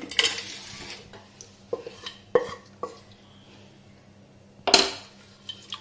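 Metal kitchen utensils clinking and knocking against a cooking pan: a short scrape at the start, then a handful of separate clanks, the loudest nearly five seconds in.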